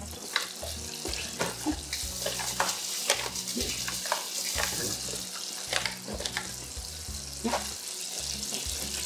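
Battered walleye fillets frying in hot oil: a steady sizzle with scattered pops and crackles.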